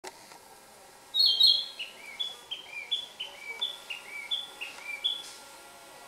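Male Narcissus Flycatcher singing: two loud high whistles about a second in, then a falling three-note whistled phrase repeated about four times.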